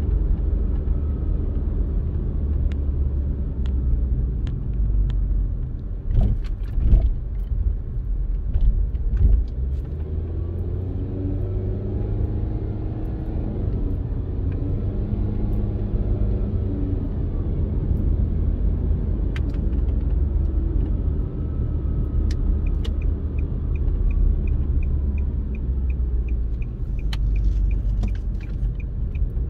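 Road and engine rumble of a moving car heard from inside the cabin, with a few thumps about six to nine seconds in. Near the end a turn-signal indicator ticks fast and evenly as the car nears an intersection.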